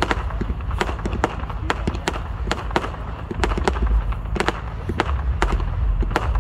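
Multi-shot firework cake firing a rapid barrage: sharp bangs and pops about two to three a second as shots launch and burst, over a steady low rumble.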